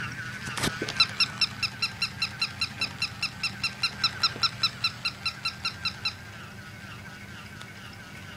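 Electronic bark of a battery-powered plush toy Chihuahua: a rapid train of short, high, identical yips, about five a second, that runs for about five seconds and then stops. A click comes just before the yipping starts, and a steady low hum runs under it.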